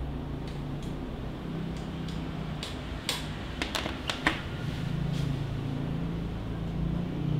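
A white USB power cable being handled and set down on a table. Its plugs give a quick cluster of light clicks and taps about three to four seconds in, over a steady low hum.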